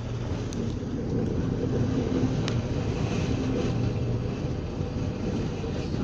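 Steady low rumble and hum of a bulk carrier's machinery, heard inside the wheelhouse, with a faint tick or rattle about half a second in and another about two and a half seconds in.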